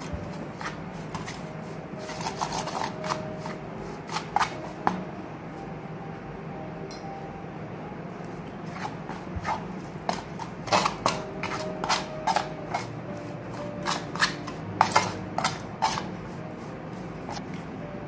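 Steel spoon stirring a flour mixture in a steel plate: irregular clinks and scrapes of metal on metal, coming in bursts with short lulls between.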